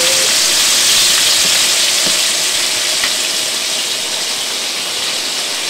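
Flour-dredged chicken wings and tenders deep-frying in a large pan of very hot oil: a steady, loud sizzle that eases slightly near the end.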